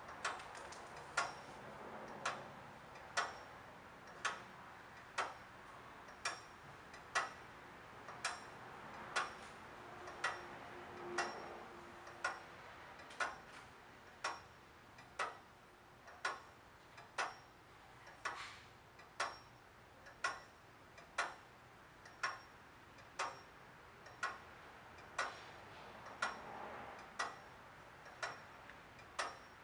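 Restored Howard street clock movement ticking steadily, about one sharp tick a second.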